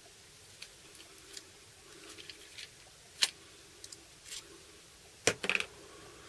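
Scattered light clicks and taps of small parts and tools being handled on a workbench, with one sharper click about three seconds in and a short cluster of taps near the end.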